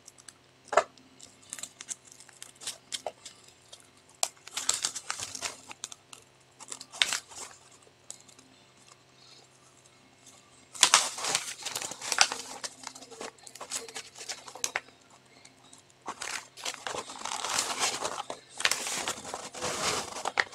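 Paper cover sheet being peeled back off the glued surface of a diamond painting canvas, crinkling and crackling. A few scattered crackles at first, then longer stretches of crinkling from about halfway through.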